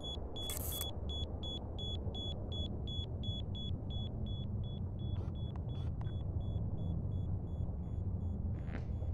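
A rapid run of high electronic beeps, about four or five a second, fading away over about five seconds. Under them is a steady low rumble.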